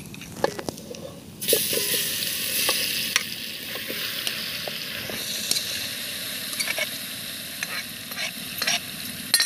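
Marinated fish pieces spooned off a steel plate into hot oil and masala in a pot: a sudden loud sizzle starts about a second and a half in as the fish hits the oil and keeps going, with the spoon clicking against the plate now and then.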